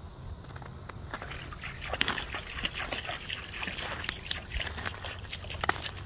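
River water trickling and lapping over stones at the shore, with many small clicks and splashes.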